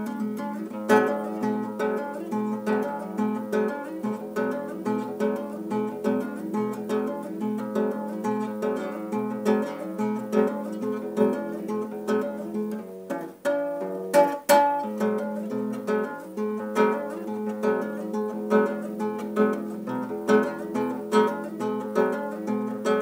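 Classical acoustic guitar played fingerstyle: a quick, repeating picked figure in a math-rock style. About 13 seconds in the pattern briefly drops away and two sharp struck chords ring out, then the picking resumes.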